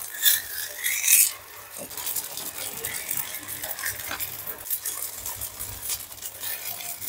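Ghee sizzling and crackling under a bobbattu (stuffed sweet flatbread) roasting on a hot griddle. There are a couple of louder scrapes or rustles about a second in, then steady crackling.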